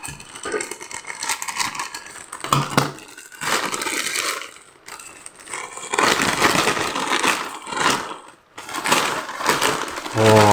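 Plastic courier mailer bag crinkling and rustling in several loud bursts as it is cut and pulled open with scissors.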